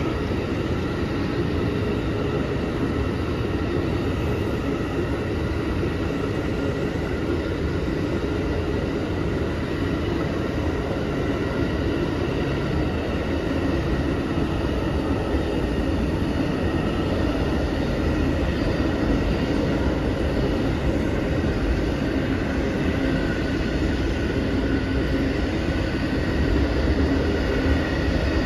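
Amtrak Auto-Train rolling steadily past: bilevel passenger cars and then enclosed autorack car carriers, a continuous rumble of wheels on rail with faint high ringing tones above it. It grows a little louder near the end.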